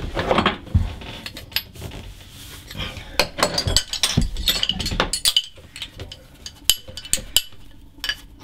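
Small brass pipe fittings clinking and tapping as they are handled and screwed together by hand, the threads wrapped in PTFE tape, with a metal spanner knocking against them near the end.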